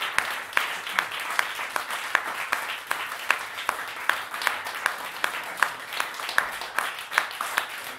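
Audience applauding at the end of a song: steady clapping from many hands, with individual sharp claps standing out.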